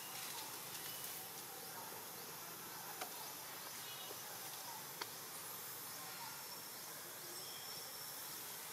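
Steady outdoor ambience, an even hiss of insects, with two faint sharp clicks about three and five seconds in.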